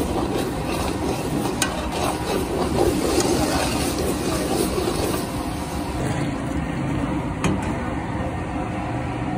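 A steel ladle stirs a large aluminium pot of bubbling daal, clinking lightly against the pot twice, over a steady rushing noise.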